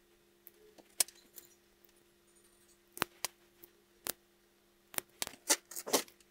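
Sharp snips of side cutters trimming thin drain wires, then the clicks and clacks of a hand wire stripper removing their insulation, a quick run of clicks near the end.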